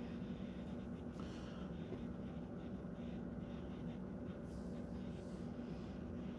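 Steady low room hum with faint scratching and rustling as a lit cigar is turned and handled between the fingers.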